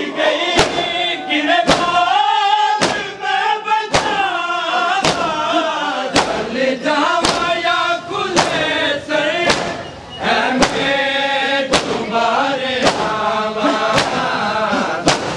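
Mourners chanting a noha in unison, with matam: hands striking chests together in a steady beat about once a second under the singing.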